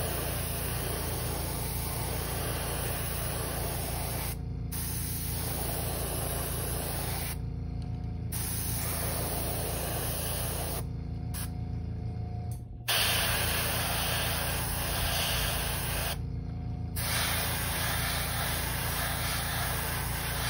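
Airbrush spraying candy red paint in light passes, a steady hiss that stops briefly about four times between passes and is louder after the middle. A steady low hum runs beneath.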